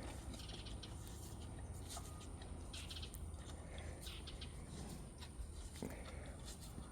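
Faint bird chirps, a few short calls scattered over a quiet outdoor background.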